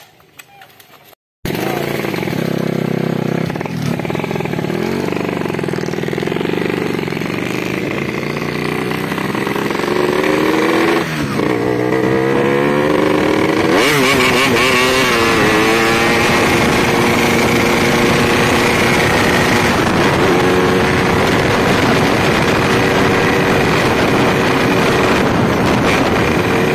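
Yamaha RX-King single-cylinder two-stroke motorcycle engine running loud through its exhaust. Its pitch rises and falls several times as it revs about ten to fourteen seconds in, then holds steady.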